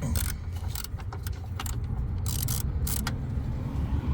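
Scattered metallic clinks and rattles from hand work on the car's battery and cables, over a steady low hum.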